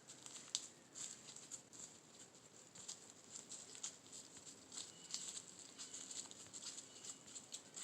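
Faint, irregular pattering of light ticks and rustles, some ten or more a second at times, with one sharper tick about half a second in.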